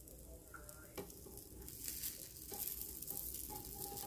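Oatmeal-and-egg pancake batter frying in oil in a nonstick pan: a steady sizzle with fine crackles, growing louder about halfway, and one light knock about a second in.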